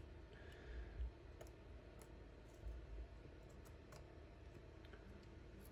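Faint, irregular small clicks of a punch working the small front pin out of a Steyr M9-A1 pistol's trigger chassis.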